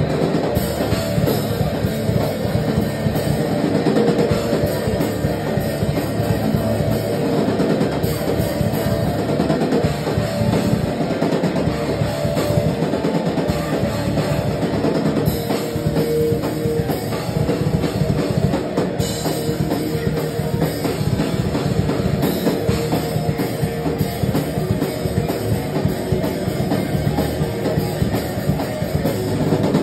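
A rock band playing loud and live: a drum kit pounding out a fast beat under an electric bass and a distorted electric guitar, with no let-up.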